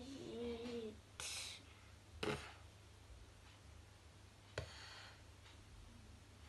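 A child's voice sounding out letters from a Dutch reading sheet one at a time: a held vowel at first, then a short hiss and a few brief, soft sounds with pauses between.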